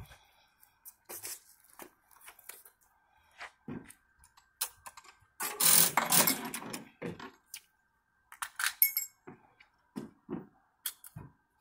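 Metal clicks, clacks and rattles of wheelchair tie-down hooks and strap buckles as a wheelchair is strapped down in the back of a van. About halfway through there is a louder scraping rush lasting about a second.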